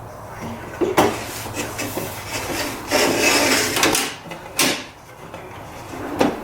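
Wooden drawer box being slid in and out on Blum undermount drawer slides for a first trial fit: a knock about a second in, a sliding rush of about a second around the middle, and sharp wooden knocks near the end.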